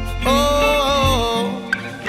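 Background music: a held, gliding melody over a strong bass line. The bass drops out about one and a half seconds in.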